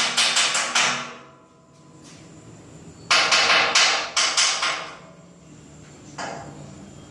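CNC machine being test-run, giving rapid sharp knocks, about four to five a second, over a low hum: a run that stops about a second in, a second short burst in the middle, and one single knock near the end.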